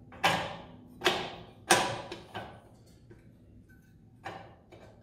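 Pinion nut holder tool clanking against the inside of a Volvo Penta SX lower unit housing as it is worked into place: three sharp metallic clanks within the first two seconds, each ringing briefly, then a few lighter knocks.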